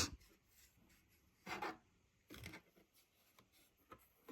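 A few short, faint rubbing and scraping sounds from hands working at a cash register, trying to get money out of it.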